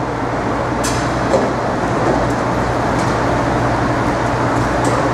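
Steady city traffic noise with a constant low hum, and a couple of faint clicks about a second in.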